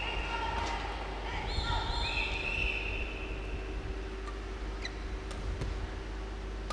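Badminton shoes squeaking on the court floor in the first few seconds, then a few sharp shuttlecock hits off racquets as a rally gets under way, over a steady hum of the hall.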